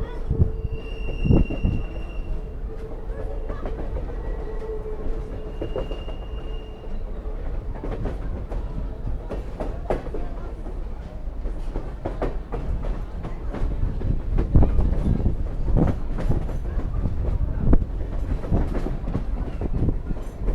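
Train rolling along the track with a steady low rumble. A wheel squeal is held over the first few seconds, and sharp clanks and clicks of wheels over rail joints are scattered throughout, more of them in the second half.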